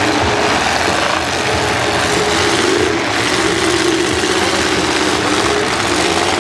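Several demolition derby cars running and revving together, a loud steady mix of engine noise from unmuffled exhaust stacks.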